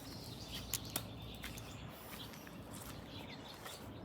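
Faint outdoor ambience: a few scattered bird chirps over a low steady rumble, with two sharp clicks just before a second in.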